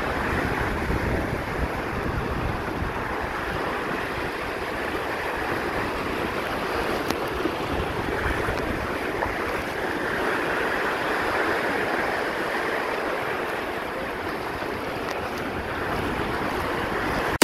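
Small surf breaking and washing up the sand in a steady wash, with wind buffeting the microphone.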